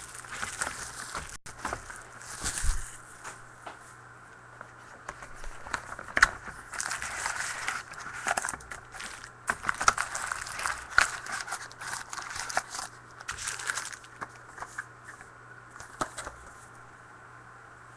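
Plastic wrapping on a trading-card box being torn open and crinkled by hand, without a knife: irregular crackling and rustling with sharp tearing clicks.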